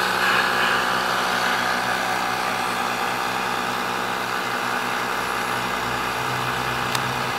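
Downdraft wood gasifier running with its small electric pump driving the gas flow: a steady motor hum under a constant rushing hiss, with one sharp click near the end.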